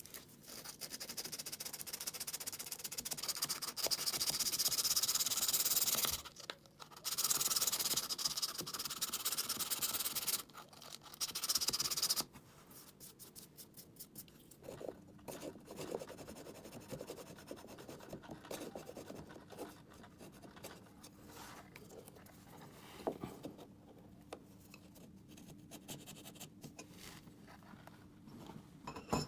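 Sandpaper rubbing hard over cured body filler, a loud, hissing scratch in long stretches with a short pause, as the patched trim is sanded smooth. About twelve seconds in it drops to quieter, intermittent light scraping and rubbing as the surface is leveled.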